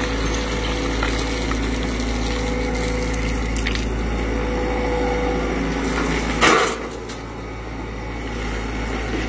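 Mecalac 11MWR wheeled excavator's diesel engine running steadily under load while its hydraulics work the arm, digging rock and swinging to the tipper truck. A short, loud clatter about six and a half seconds in, after which the engine's low rumble drops.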